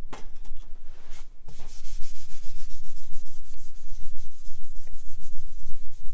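A hand wiping dust off the glass top of a Galaga cocktail-table arcade machine: a couple of single scrapes, then from about a second and a half in, fast, even back-and-forth rubbing strokes, about five a second.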